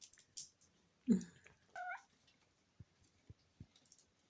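Bengal kitten giving a short, high-pitched, wavering meow about two seconds in, amid light clicks and a few soft thumps from a soft rattle toy being batted about.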